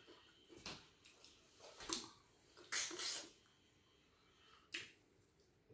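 Close-up wet eating sounds of fufu with stew: four short lip smacks and squelches a second or so apart, the one about three seconds in a little longer.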